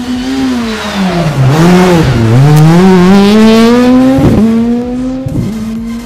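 Škoda Fabia rally car's engine passing close through a corner. The revs drop twice as it brakes and shifts down, then climb steadily as it accelerates away, with two sharp cracks about four and five seconds in.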